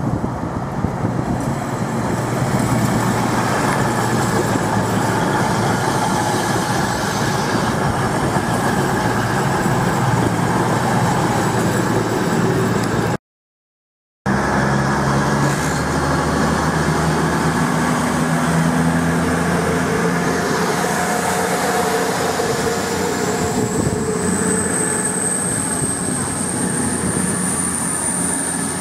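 Voyager diesel-electric trains passing close by at speed, with a one-second break between two passes. First a CrossCountry Voyager rumbles through. Then a Virgin Class 221 Super Voyager passes with a steady diesel engine hum and a high whine that slowly rises in pitch near the end.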